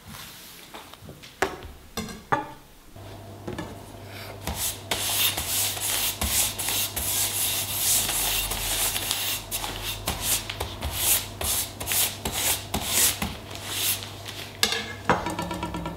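A single-bevel Japanese kitchen knife stroked back and forth across a folded stack of newspaper to strip off the burr after whetstone sharpening. It makes a papery scraping in quick repeated strokes, about two a second, starting a few seconds in.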